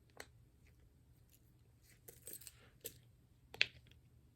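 Silicone pop-it fidget toy being pressed: a handful of separate soft pops and clicks, with a short rustle of handling about halfway.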